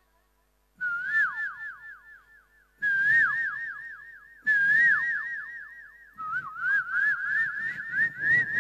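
A man whistling a bird-call imitation through cupped hands into a microphone: four bursts of quick repeated notes, each note dipping at its end, with short gaps between. The last burst climbs in pitch.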